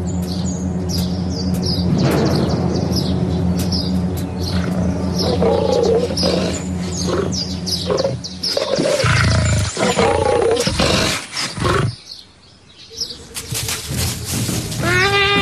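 Big cat roaring and growling, with birds chirping repeatedly through the first half. The loudest, roughest sounds come about eight seconds in and break off about twelve seconds in.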